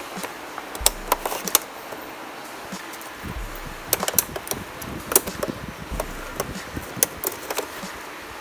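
Irregular clicks, ticks and rustling as a wire is fed and pulled behind a car's plastic interior trim panels.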